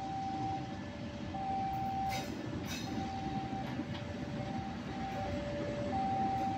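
KAI passenger coaches rolling past on the rails: a steady rumble of wheels and running gear, with a steady whine that switches back and forth between two nearby pitches and two sharp clacks a little over two seconds in.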